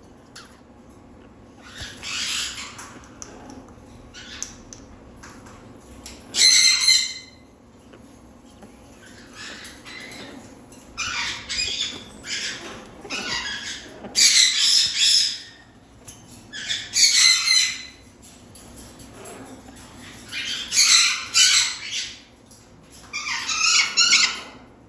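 Parrot squawking: harsh, loud calls in bursts every few seconds, some bursts made of several calls in quick succession.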